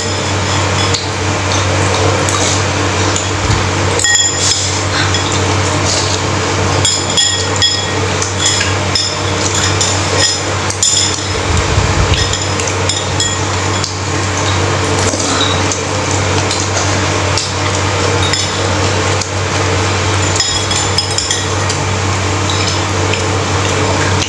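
Metal spoons and forks clinking and scraping against a ceramic bowl of noodle soup during eating, in many short, irregular clicks over a steady low hum.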